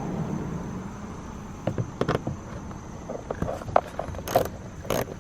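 Ratchet wrench clicking in short, irregular runs as it turns a door-panel bolt back in. A faint, steady high tone sits behind it.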